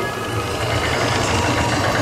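Roller coaster train climbing a chain lift hill: the lift chain rattling under the cars with a pulsing low rumble.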